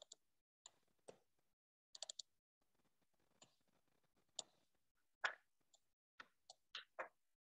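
Faint computer mouse clicks and keyboard key presses: about fifteen short taps spread out, with a quick run of three about two seconds in.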